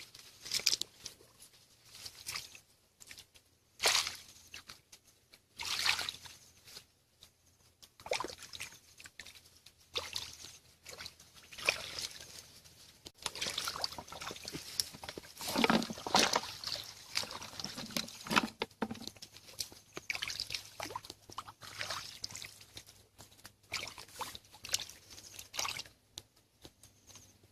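Hands splashing and sloshing through shallow muddy water in irregular bursts, with water trickling in between, as fish are groped for by hand.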